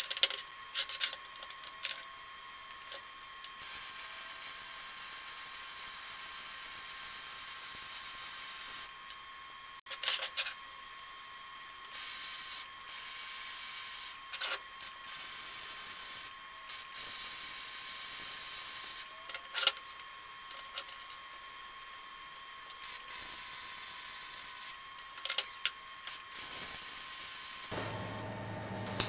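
MIG welding arc from a TecArc OptiArc EMIG400 MST welder laying weld beads on a steel plate box, a steady hissing crackle in runs of a few seconds. Short pops and clicks come where the arc strikes and stops between runs and tacks.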